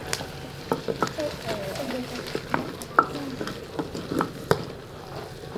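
A wooden spoon stirring food in a stone cooking pot, knocking repeatedly against the stone sides and rim, over the soft sizzle of the food.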